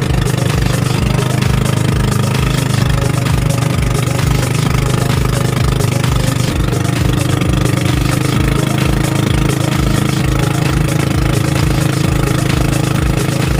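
Motorized bangka (outrigger boat) engine running steadily under way, a loud continuous drone with a fast low pulsing beat. Its pitch shifts slightly about six and a half seconds in.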